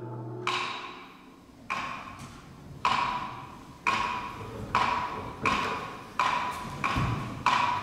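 Single sharp percussion strikes from a Korean traditional percussion part, each ringing briefly with a clear pitch, quickening from about one a second to nearly two a second.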